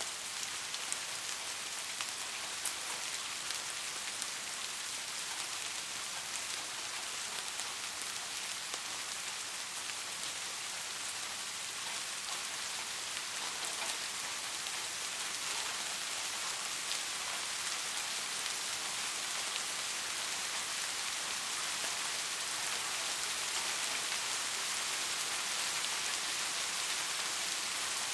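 Steady rain falling, an even hiss with a few sharp drop taps now and then.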